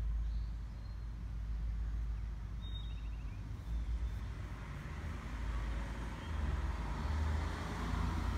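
Outdoor background: a low, fluctuating rumble, with one brief high chirp about three seconds in.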